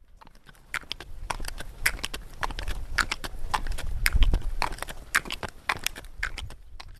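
Hooves of a pack mule clopping on stone paving as it walks, irregular sharp knocks a few a second over a low rumble. The sound fades in at the start and cuts off abruptly at the end.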